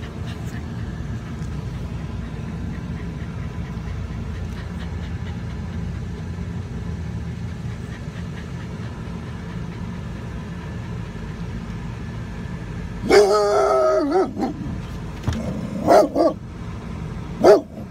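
Steady low rumble inside a Chevrolet Astro van. About thirteen seconds in, a dog lets out a loud, wavering bark-howl lasting about a second, followed by a few short barks near the end.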